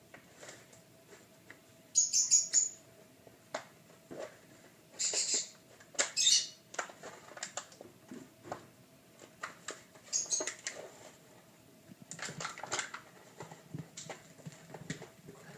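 A clear plastic tub being pushed around a tile floor by puppies: short scraping and knocking runs of plastic on tile, several of them, with small clicks of claws on the tiles between. A faint steady hum sits underneath.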